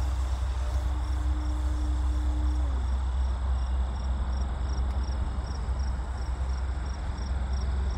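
Electric motor of a ParkZone Extra 300 RC plane flying overhead, a faint steady hum that drops slightly in pitch about three seconds in. Under it a steady low rumble and a high chirping that repeats about three times a second.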